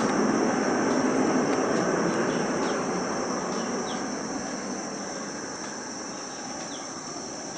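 Boeing 737 jet rolling out on a wet runway after landing, its engines and the spray off the tyres making a loud rushing roar. The roar fades steadily from about two and a half seconds in as the airliner slows and moves away. A steady high insect trill runs underneath.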